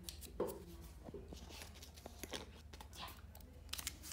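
Faint handling noises: a few light taps and rustles, over a low steady hum.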